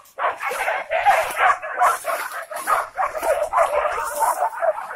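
A pack of hunting dogs barking and yelping in a dense, overlapping chorus, baying a wild boar.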